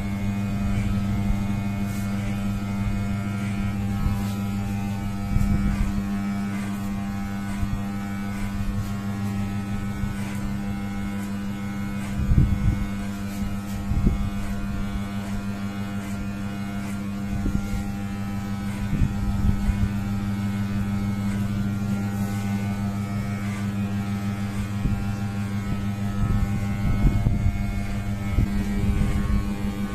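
Electric hair clipper running with a steady low buzz while cutting hair over a comb, with a few brief knocks about halfway through.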